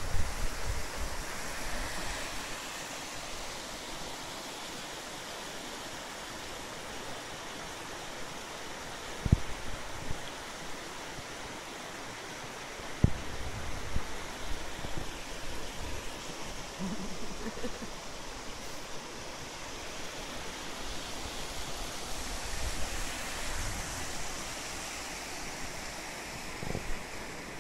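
Shallow river rapids rushing over stones, a steady even rush of water. Two brief low thumps on the microphone about nine and thirteen seconds in.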